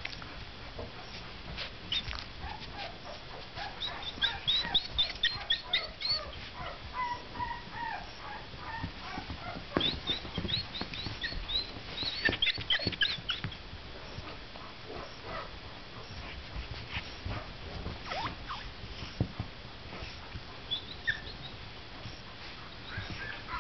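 Puppies giving high-pitched squeaky whimpers and yips in quick runs of several at a time, two longer runs in the first half and a few more near the end, with scattered soft bumps from their play.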